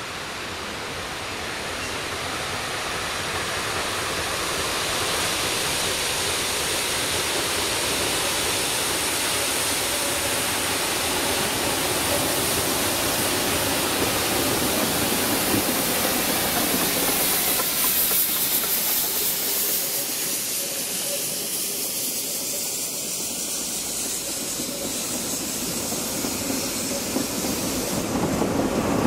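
Narrow-gauge Garratt steam locomotive approaching with its train, its running and steam hiss growing louder over the first few seconds and mixing with the steady rush of shallow river rapids.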